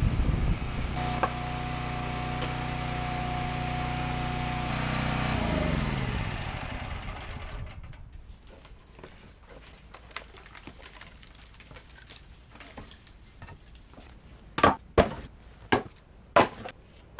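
Gas-engine log splitter running steadily with a high whine, then shut off about five seconds in, its pitch falling as it winds down. After several seconds of quiet, a handful of sharp wooden knocks near the end.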